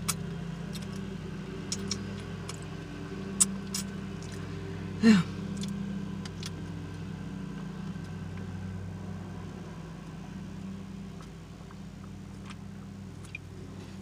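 Steady hum of a car engine idling, heard inside the car's cabin, while a woman drinks from a soda can. A few light clicks come in the first few seconds, and about five seconds in there is one short throaty sound that falls in pitch.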